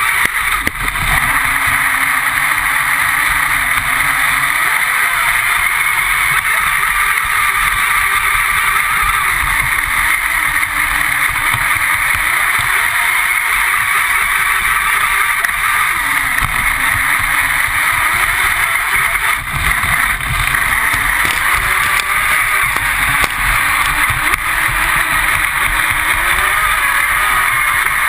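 Radio-controlled speedboat running at speed, heard from a camera on its own deck: a steady high motor whine over rushing water and wind, with the pitch rising and falling every few seconds and the hull thudding on the chop.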